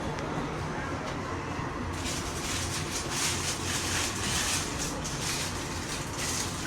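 Passenger lift riding: a steady low hum from the moving car, with a hiss that grows stronger about two seconds in. A short high beep sounds near the end.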